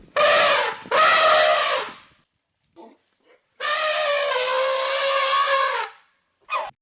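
An animal calling three times: two short calls, then a long call of about two seconds with a slightly wavering pitch.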